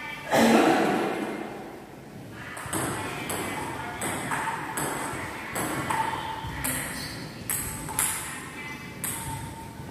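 Table tennis rally: the ball clicks back and forth off paddles and the table, about two hits a second from about three seconds in, some bounces leaving a short ringing ping. A brief loud burst of sound comes about half a second in.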